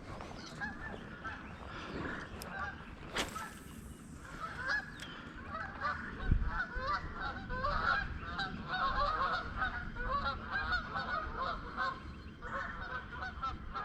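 A flock of geese honking, many calls overlapping and growing denser a few seconds in. A single sharp click sounds about three seconds in.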